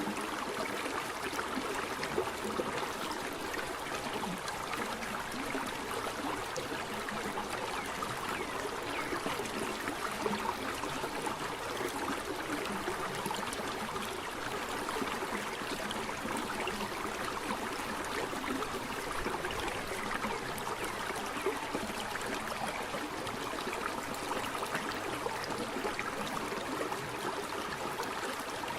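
Steady rush of falling, splashing water from a waterfall, without let-up.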